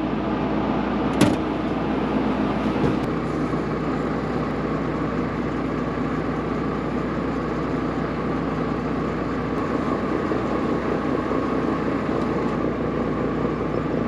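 A vehicle engine running steadily, with a short click about a second in.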